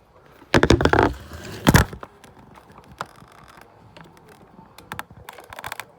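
Camera being handled and set down: a loud rubbing bump, then a sharp knock. After that come faint clicks and scrapes of hand work as the rubber sleeve is pulled off the motorcycle's throttle housing.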